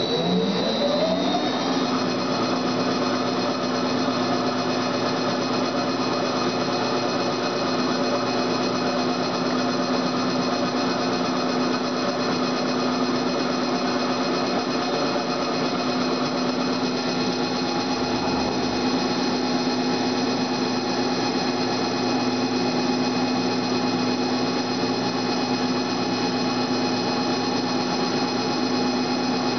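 Friction stir welding machine's spindle and rotating tool: a rising whine over the first couple of seconds as the spindle comes up to speed, then a steady machine hum during the plunge phase into 2219-T87 aluminum plate. A higher tone joins a little past halfway as the pin is pressed into the plate.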